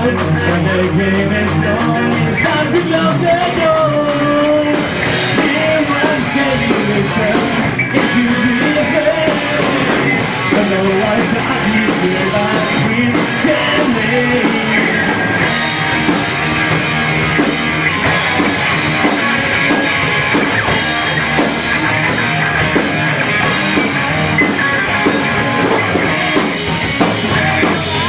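Rock band playing live, with drums, electric guitar and bass in an instrumental passage of a song.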